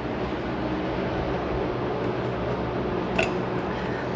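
Steady whirring hum of an electric motor, with a single light click about three seconds in.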